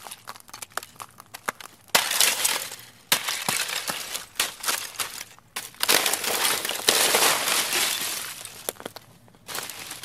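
Candle ice being pushed apart underfoot: a patter of small clinks, then loud crunching, splintering bursts about 2, 3, 6 and 7 seconds in as the column-like ice crystals break away, with a glassy tinkle.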